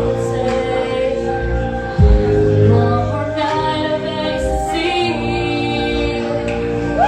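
Live pop music: sustained synth or keyboard chords with a deep bass hit about two seconds in, and a female voice singing in the middle.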